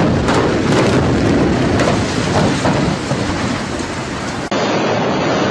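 Building implosion: a rapid string of demolition charges cracking, running into the rumble of the structure collapsing. About four and a half seconds in, the sound cuts abruptly to a steadier rumbling noise.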